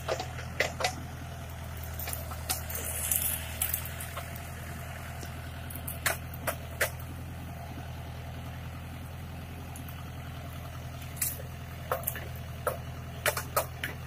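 Tractor-mounted backhoe loader's diesel engine running steadily, with a dozen or so sharp knocks and clanks scattered over it, several close together near the end.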